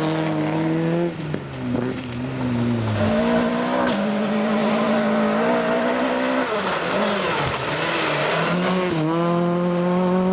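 Rally car engine at full load on a gravel stage, revs rising and falling as the driver lifts off and accelerates through the gears. There is a lift with falling revs about a second in, a dip in the revs near 7–8 seconds, and hard acceleration again near the end.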